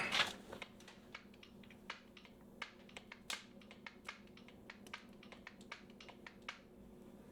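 Faint, irregular clicks and taps of a lever-action grease gun being worked on the skid steer's grease fittings, over a steady low hum.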